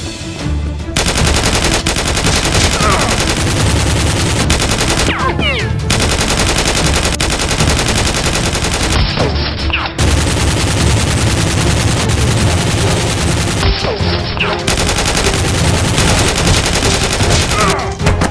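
Sustained rapid automatic gunfire, a dense rattle of shots with brief falling whistles about every four seconds, as in a dubbed-in action-film gunfight sound effect.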